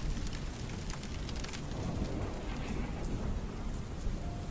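Steady rain falling, with a low rumble of thunder underneath.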